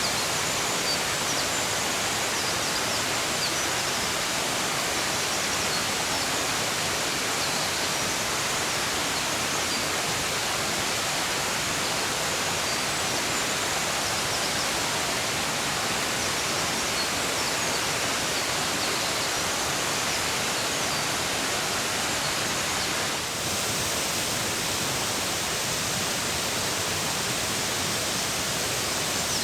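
A mountain stream rushing steadily over rocks, a dense even hiss of water, with faint high chirps of small birds singing over it now and then.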